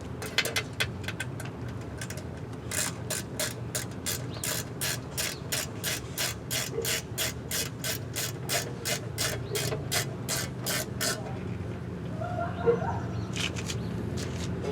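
Ratchet tool clicking in an even rhythm, about three to four clicks a second, as panel bolts are backed out; the clicking stops a few seconds before the end.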